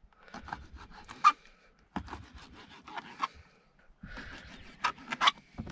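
Kitchen knife slicing raw squid into small pieces on a plastic cutting board: irregular taps and scrapes of the blade on the board.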